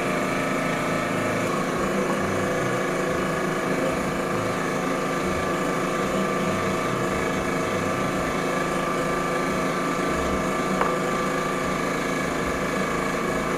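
Steady, even hum of a running motor, unchanging throughout.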